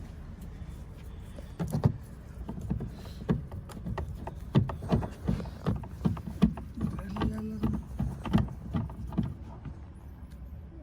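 Irregular clicks and knocks of a screwdriver working a screw and its push-in release button on a car's plastic door trim panel, over a low steady hum.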